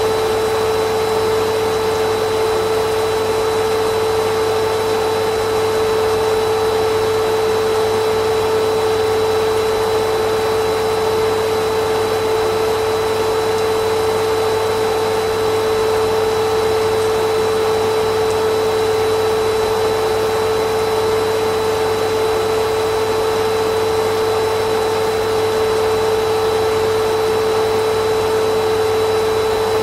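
Vacuum cleaner running steadily, a constant loud whine and rush of air with a strong steady hum that never changes pitch.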